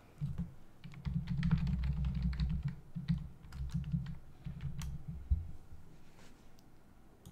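Typing on a computer keyboard: a quick run of key clicks. Under them a low rumble fades out about five seconds in.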